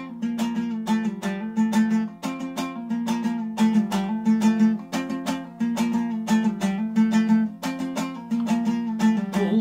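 Dombra, a two-stringed long-necked lute, strummed in a quick, even rhythm of about four to five strokes a second over a steady low string: an instrumental passage with no singing.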